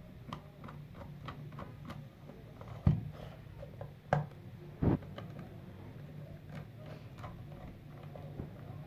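Small plastic clicks and taps from handling and opening an analog alarm clock's case, with three louder knocks about three, four and five seconds in, over a steady low hum.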